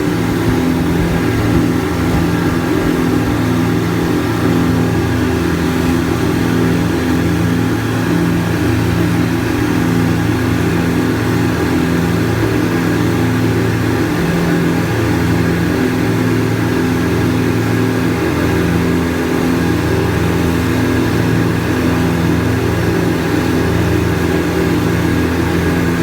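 Speedboat engine running steadily, an even drone that holds the same pitch and loudness throughout.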